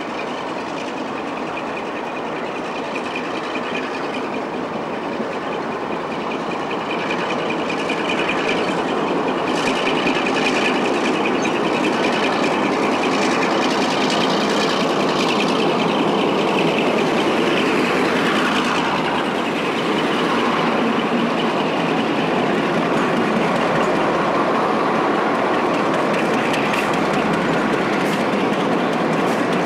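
Class 52 'Western' diesel-hydraulic locomotive hauling a train in, its engine growing louder over the first several seconds and then running close by. Wheels click over rail joints as the locomotives pass.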